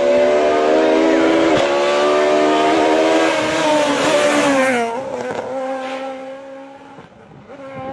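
Rally car engine at high revs, its pitch dipping twice at gear changes, then falling sharply as the car goes by about four and a half seconds in. A quieter, steady engine note follows.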